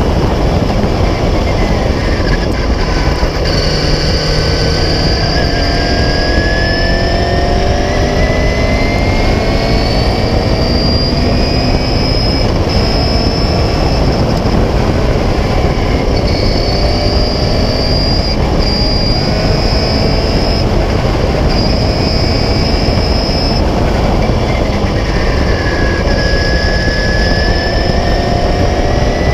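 Onboard sound of a 1976 Beagle Mk4 Clubmans racing car's engine at racing speed, its note climbing slowly under acceleration twice, over a heavy rush of wind and road noise.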